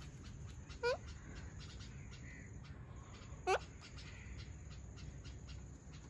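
Alexandrine parakeet giving two short, sharp squawks, each rising steeply in pitch, about a second in and again about three and a half seconds in.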